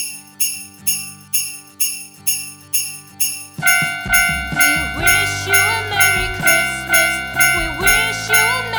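Level-crossing warning bell given a jingle-bell sound, ringing in a steady rhythm of about two strikes a second. About three and a half seconds in, a louder, fuller layer with low sound and gliding tones joins the ringing.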